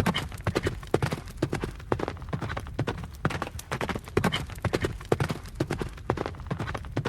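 A horse running, its hooves striking the ground in quick, uneven runs of beats, over a low rumble.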